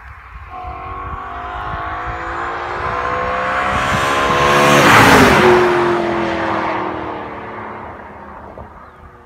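BMW E93 M3's 4.0-litre V8, fitted with a BMC performance air filter, driving past under acceleration: the engine note climbs in pitch and grows louder as the car approaches, peaks as it passes about five seconds in, then drops in pitch and fades away.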